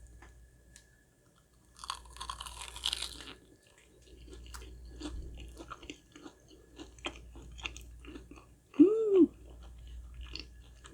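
Biting into a crispy fried chicken croquette with a crunch, then chewing with many small clicks and crackles. Near the end there is a short hummed "mm" that rises and falls.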